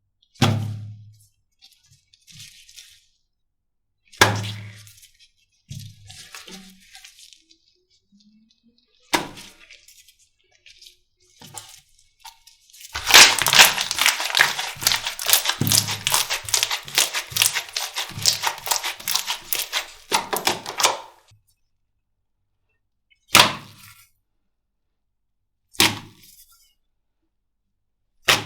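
Slime being handled: several single squishy slaps, and in the middle a long run of rapid crackling pops lasting about eight seconds.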